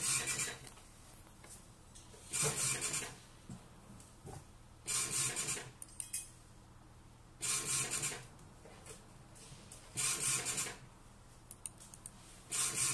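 Xprinter XP-76 76 mm dot-matrix receipt printer printing in short passes of the print head: six buzzing bursts, each about two-thirds of a second long, about two and a half seconds apart.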